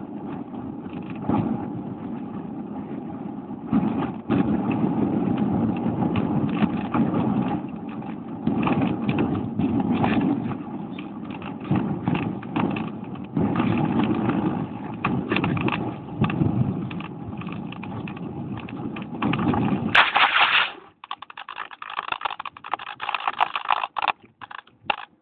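Air rushing over a phone taped to a radio-controlled plane in flight, together with its motor, rising and falling in surges. About twenty seconds in comes a sharp knock as the plane touches down, followed by broken scraping and rustling as it slides into long grass and stops.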